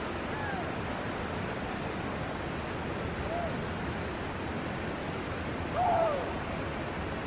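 Steady hiss of insects and crickets in the shrubs. A few short falling calls cut through it, the loudest about six seconds in.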